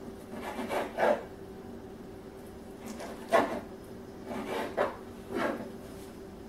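Kitchen knife cutting raw chicken tenderloin into chunks on a wooden cutting board: about six separate strokes, the blade knocking and scraping on the board.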